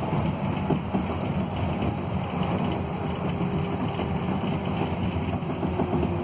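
Cabin noise of a Scania K280UB city bus under way: the rear-mounted Scania DC09 five-cylinder diesel's steady low drone mixed with road noise. A faint steady whine joins about halfway through.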